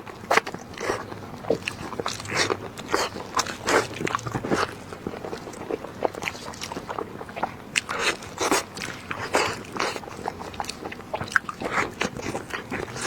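Close-miked eating: irregular short wet smacks, bites and crunches of someone chewing food, several a second.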